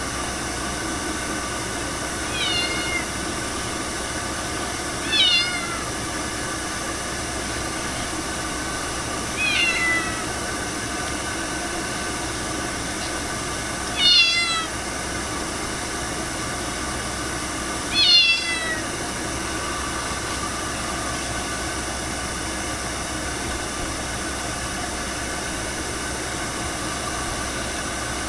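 Ragdoll cat meowing five times, a few seconds apart, each meow falling in pitch, over a steady hiss-like background noise.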